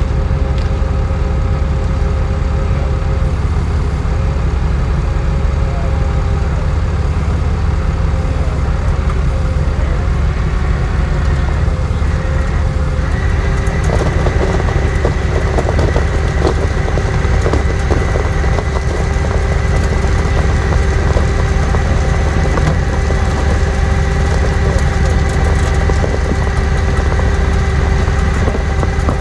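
Truck engine running steadily at idle, with a steady whine over it that changes pitch about halfway through.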